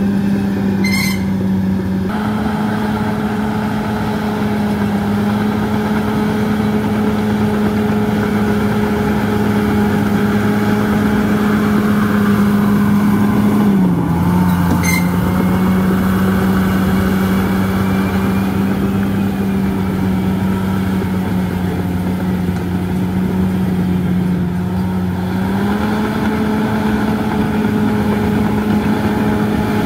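Crawler bulldozer's diesel engine running steadily under work, its note dropping a little about halfway through and rising again near the end as the load changes. Two short sharp clicks, about a second in and again about halfway.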